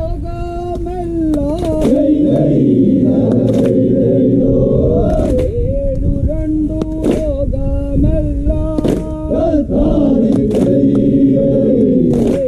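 A crew of men singing a call-and-response chant: a lone leader sings a line and the whole group answers in unison, twice. Hand claps keep time about every two seconds.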